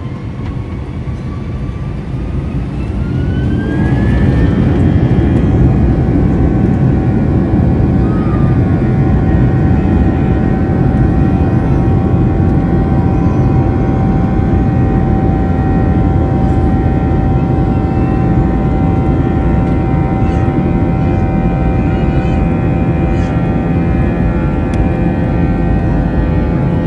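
Airbus A321-231's twin turbofan engines spooling up to takeoff thrust: a rising whine over the first four seconds, then a loud steady roar with several held tones, heard from inside the cabin.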